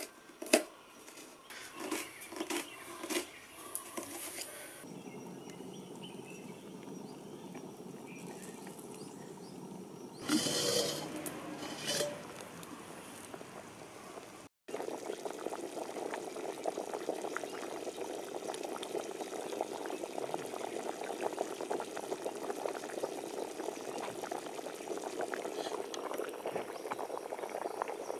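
A knife chopping shallots on a steel plate, a few sharp taps in the first four seconds. After a cut about halfway through, a pot of country chicken boils hard: dense, steady bubbling with many tiny pops.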